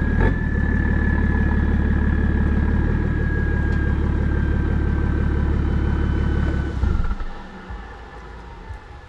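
BMW 335d twin-turbo diesel straight-six idling through a 3.5-inch single-exit exhaust, with a high, steady turbo whistle over the low rumble that slowly sinks in pitch. About seven seconds in the engine sound cuts off and the rumble stops.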